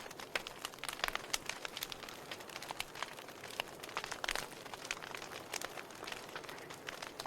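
Wood fire burning in a fireplace: logs crackling and popping irregularly over a soft steady hiss of the flames.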